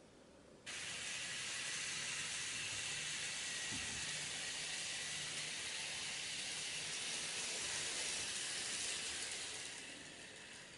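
N-gauge model of a Hankyu 2800 series train running on the layout track as it pulls into the station: a steady hiss over a faint low hum. It starts abruptly about a second in and fades near the end as the train slows.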